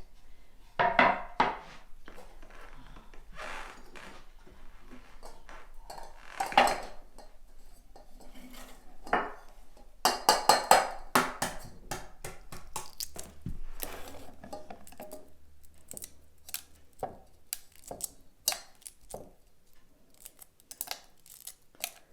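Kitchenware clattering: dishes, pots and metal cutlery knocking and clinking in irregular bursts, some knocks ringing briefly.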